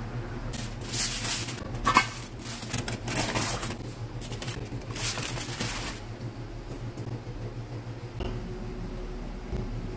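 Aluminium foil crinkling in a series of bursts as it is wrapped around a pan, with one sharp metal clank of the stainless-steel pan or lid about two seconds in, over a steady low hum.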